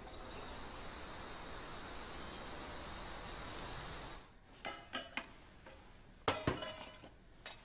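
Night ambience of crickets chirping in a steady, evenly pulsing high trill over a soft hiss. About four seconds in it stops, and several light clinks and knocks of metal dishes follow.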